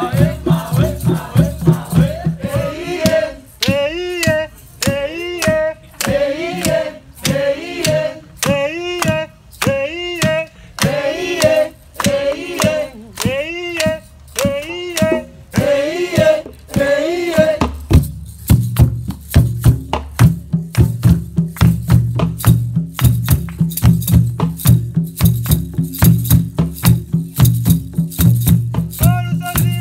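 Drum circle music in a Kigezi rhythm: a voice sings short, repeated phrases over light rattling percussion. About two-thirds of the way through, the deep hand drums come in together and keep a dense, fast rhythm.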